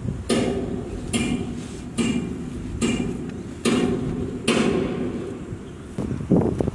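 Hands pressing and kneading a large mass of pizza dough in a big steel basin: six thumps a little under a second apart, each with a short metallic ring from the bowl. Wind buffets the microphone near the end.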